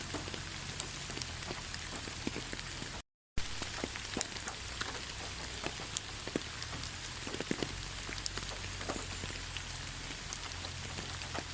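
Steady gentle rain falling, with many individual drops ticking on a surface over an even hiss. The sound cuts out completely for about a third of a second about three seconds in, then resumes.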